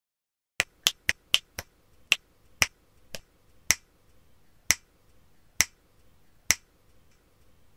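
A run of about a dozen sharp clicks, coming quickly at first, about four a second, then slowing to about one a second and stopping well before the end.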